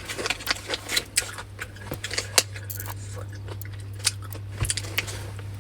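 Scattered small clicks and crackles of snacks and their packaging being handled and eaten, over a steady low hum.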